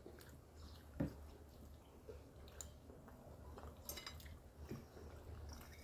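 Faint sounds of people eating: chewing and small clicks, with one slightly louder click about a second in, over a low steady hum.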